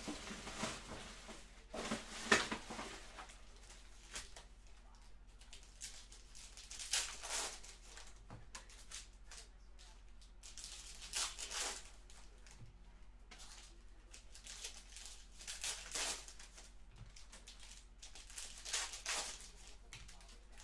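Trading-card packs and cards being handled: short bursts of rustling and crinkling of pack wrappers and cards, every few seconds.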